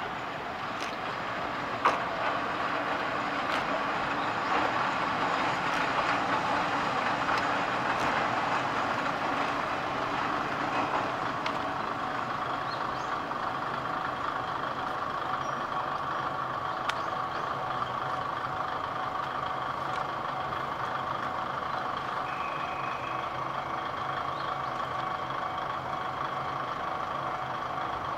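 Kominato Railway KiHa 200 diesel railcar running past, its diesel engine giving a steady hum that grows a little over the first few seconds and then holds, with a few sharp clicks, the loudest about two seconds in.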